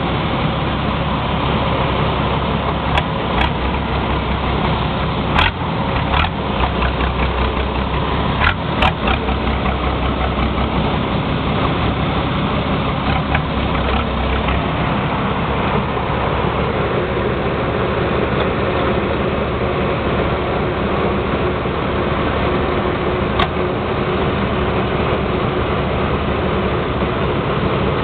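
Vehicle engine idling steadily through 'caneco' exhaust mufflers with a deep rumble, and a few short sharp clicks in the first ten seconds and again near the end.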